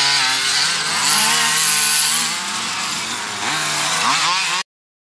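Small two-stroke petrol engines of several large-scale RC off-road buggies racing, revving up and down through the corners. The sound cuts off suddenly about four and a half seconds in.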